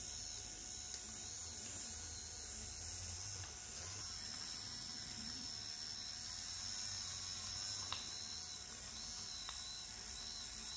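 Faint steady whirring of a small robot car's toy DC motors driving its wheels through loom-band belts and 3D-printed pulleys, with a few faint clicks.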